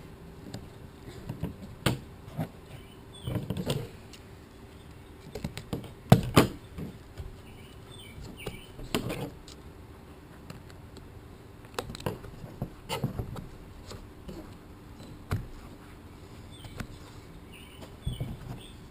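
Scattered knocks, taps and rustling, irregular and a few seconds apart, over a faint steady hum.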